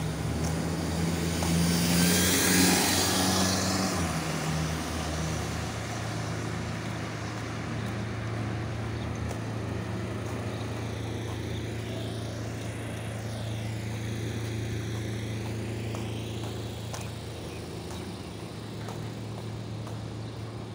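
A motor vehicle passing on a street: tyre and engine noise swells to its loudest about two seconds in and fades, leaving a steady low engine hum.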